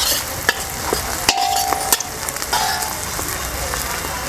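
Green peas, onion and spices frying in oil in a large kadhai, sizzling steadily, while a spoon stirs them, with a few sharp clinks and two short squeaky scrapes of the spoon against the pan.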